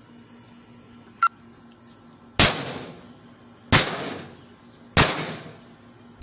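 Hard blows, from a bat or hammer, striking a microwave oven's sheet-metal casing to smash and dent it: four heavy hits about a second and a quarter apart, each ringing on briefly and fading, after a light tap about a second in.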